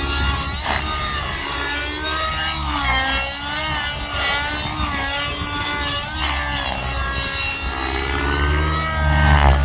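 OS 55 HZ two-stroke glow (nitro) engine of a Tron Nitron RC helicopter running at high revs through a tuned pipe in flight, its pitch repeatedly rising and falling, loudest near the end.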